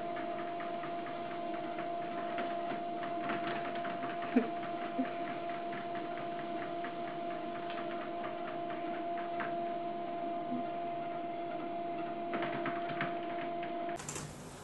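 Electric treadmill running with a steady motor whine, and light irregular ticking as cats walk on the moving belt. The whine cuts off near the end.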